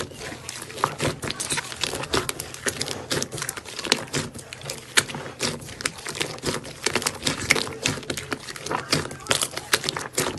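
Slime being squeezed and kneaded by hand, giving a dense, irregular run of sticky clicks and crackles.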